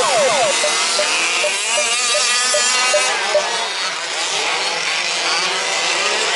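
Several 1/5-scale remote-control 4WD trucks' small two-stroke petrol engines running together, their pitches rising and falling as the trucks race. At the very start an engine's pitch drops sharply.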